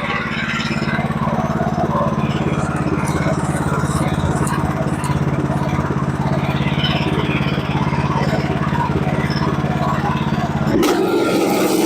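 Sawmill engine running steadily under load while the mill saws through a log. Near the end the steady engine note breaks off abruptly and a rougher, noisier sound takes over.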